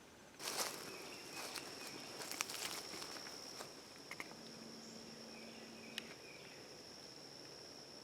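Insects singing in a steady high-pitched drone that starts about half a second in, with crackling rustles and steps in dry leaves and brush over the first few seconds.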